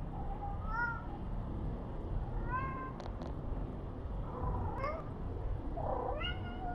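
A domestic cat meowing: about four short calls a couple of seconds apart, over a steady low background rumble.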